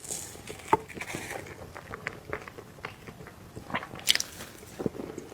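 Close-up mouth sounds of a person biting and chewing soft cake: scattered short clicks and smacks, the sharpest about a second in and again near the end.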